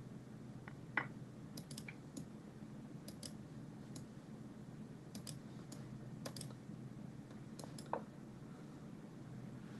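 Scattered sharp clicks of a computer mouse as chess pieces are moved on screen, the loudest about a second in and near the end, over a steady low hum.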